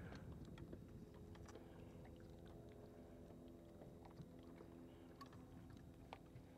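Faint, steady hum of an electric trolling motor slowly pulling a bass boat, with a few light ticks.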